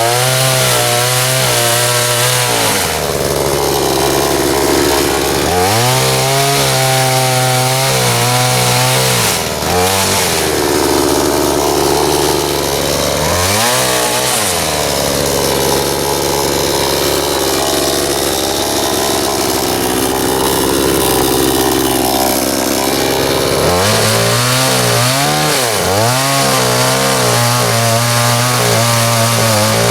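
Budget Chinese-made gas chainsaw cutting into a sassafras stump at full throttle. Several times the engine speed sags as the chain loads up in the cut, then climbs back as it frees up, over a steady rasp of the chain in the wood.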